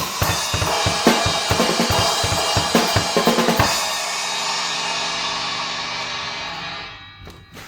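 Drum kit played with an Armada Achilles AXL cymbal over quick bass-drum and snare strokes. About three and a half seconds in, the playing stops on a last hit and the cymbal rings on, fading out over the next few seconds.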